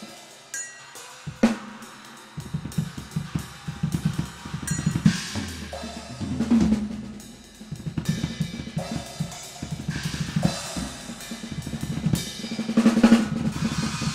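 Drum solo on a Tama Superstar kit with a Pearl brass piccolo snare: fast strokes on the snare, bass drum and cymbals, building twice into loud rolls, with a cymbal crash at the very end.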